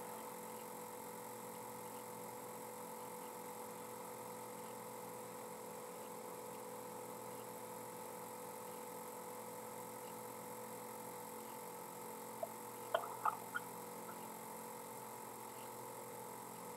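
Steady electrical hum with a couple of fixed tones, from the background of the call's audio line, with a few faint short clicks about three-quarters of the way through.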